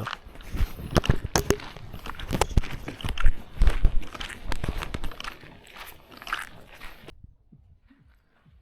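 Irregular crunching and knocking sounds, with a few heavier thumps in the middle. About seven seconds in they cut off suddenly, leaving only faint scattered sounds.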